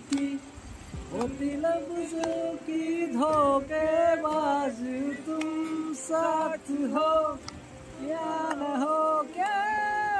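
Several men singing a song together to an acoustic guitar.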